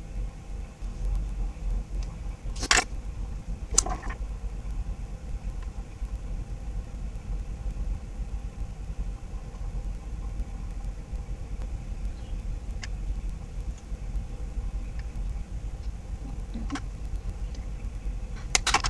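Steady low background rumble, with a few sharp clicks: two about three to four seconds in, and one more just before the end, as makeup tools are handled.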